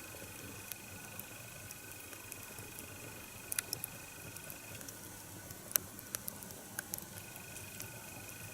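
Wood fire crackling quietly, scattered sharp snaps over a steady hiss: a split log, just lit from inside along its split, catching along its length.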